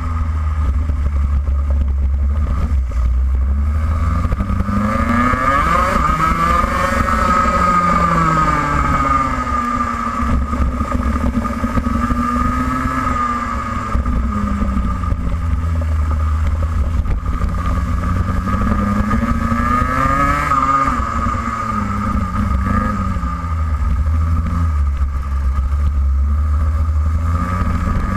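Racing kart engine heard from the kart's onboard camera, revving up and down through the corners, its pitch climbing and falling several times, over a constant low rumble.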